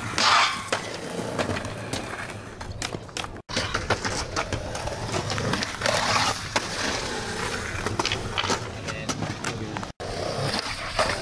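Skateboard on concrete: wheels rolling, with the sharp clacks of the board popping and landing, and the board grinding along a concrete ledge. The sound drops out briefly twice at cuts between clips.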